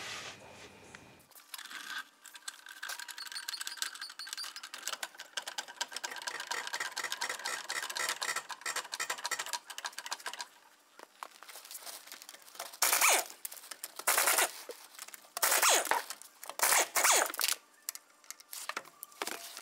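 Several seconds of fast, even clicking and rattling, then four or five short, loud bursts from an impact wrench spinning off the front wheel bolts.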